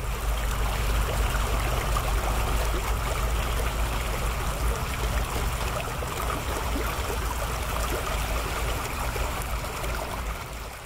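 Running water, a steady rushing and trickling with a low rumble underneath, fading out near the end.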